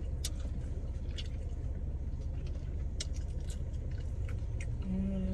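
Someone chewing a birria taco, with small irregular mouth clicks, over a steady low rumble.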